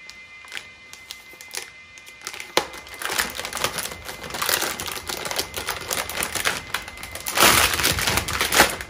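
A graphics card's retail box and packaging being opened and handled: a few scattered clicks, then from about two and a half seconds a dense run of crinkling and clicking, loudest near the end.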